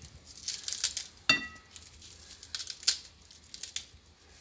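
Bunch of fresh parsley rustling in several short bursts as it is rolled up and cut by hand. About a second in, one sharp ringing clink, like a blade touching a bowl.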